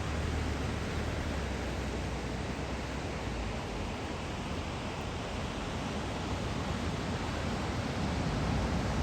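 Steady roar of ocean surf breaking along the beach under a typhoon swell, with a deep rumble, growing a little louder near the end.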